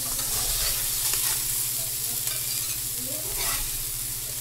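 Blackened perch and panfish fillets sizzling in a hot cast iron skillet, a steady frying hiss.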